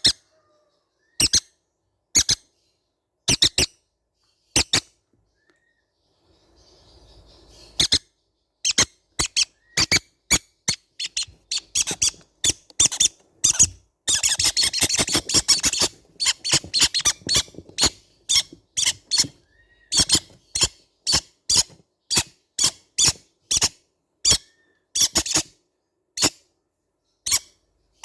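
Baby green-cheeked conures giving short, sharp squeaky calls. They come singly at first, then from about 8 s in in a fast, almost continuous run that is densest around the middle.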